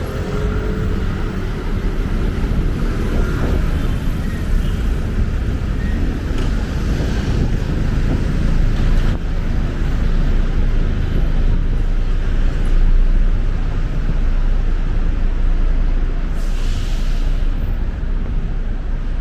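Street traffic: a steady rumble of passing vehicles, with a short hiss about three-quarters of the way through.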